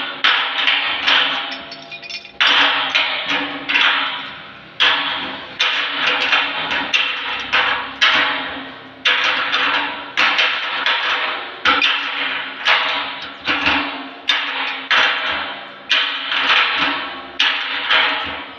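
A run of sharp strikes, roughly one or two a second, each ringing briefly and fading out.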